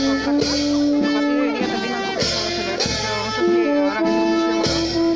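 A brass band playing a slow melody of long held notes, with loud percussion strokes at intervals.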